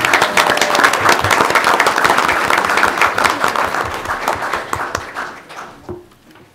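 A room of people applauding, dense clapping that dies away near the end.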